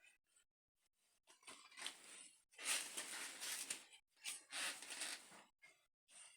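Several bursts of scraping and rustling, with short gaps between them, from engine parts being handled on a workbench.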